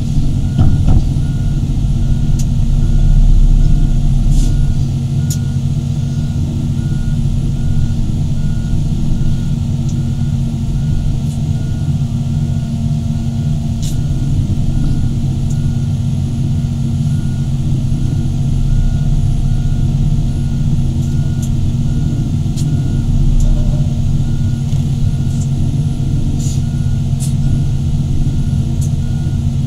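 Large hydraulic excavators' diesel engines running steadily under load, with a machine's travel alarm beeping over them without a break. A few sharp clicks or knocks come through now and then.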